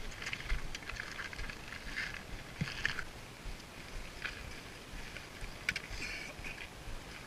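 Faint, irregular scuffs and crunches of footsteps on gravel, one every half second to a second or so, over a low rumble.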